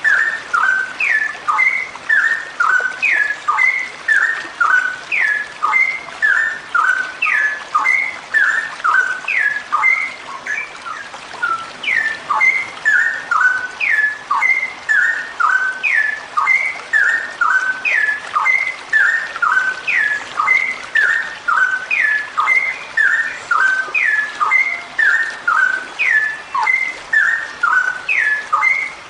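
Female straw-headed bulbul (cucak rowo) singing a long, unbroken run of bubbly whistled phrases, each a cluster of short rising notes, repeating about once a second.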